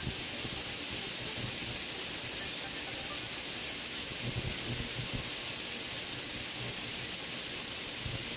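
High-amperage TIG welding arc hissing steadily on a steel flange joint.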